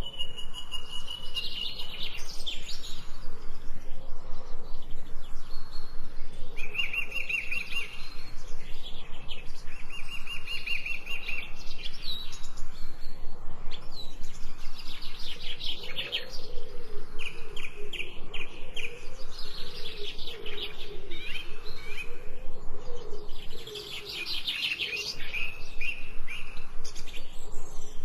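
Songbirds chirping and singing, with repeated fast, buzzy trills and short chirps throughout and a lower warbling call about halfway through.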